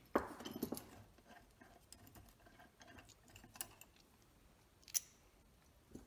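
Light metallic clicks and clinks of steel cap screws being unscrewed by hand from a cast-iron clutch housing and set down on a workbench: a quick cluster of small clicks at the start, then a few scattered single clinks, the sharpest about five seconds in.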